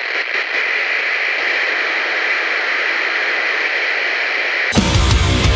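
TV-static sound effect: a steady hiss, strongest in the upper-middle range, that cuts off suddenly near the end as music begins.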